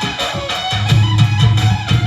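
Instrumental music for a Devnarayan bhajan: a steady beat with a melody instrument playing over it.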